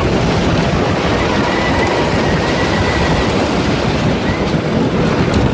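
The Beast's wooden roller coaster train rumbling and clattering fast along its wooden track through a covered tunnel, steady and loud, with a faint high wheel squeal for a couple of seconds in the middle.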